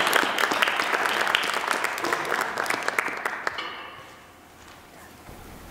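Audience applauding, dying away about three and a half seconds in to quiet room tone.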